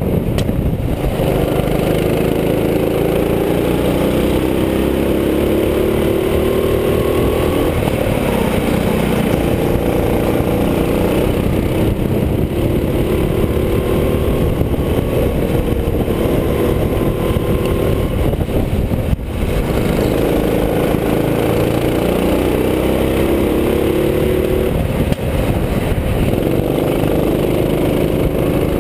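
Go-kart engine heard from on board while lapping, its pitch climbing over a few seconds as it accelerates down each straight, then dropping back when the throttle is lifted for the corners, over and over.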